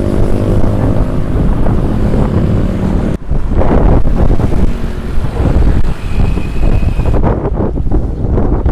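An engine running with a steady hum, then after a sudden break about three seconds in, wind buffeting the microphone with a heavy low rumble.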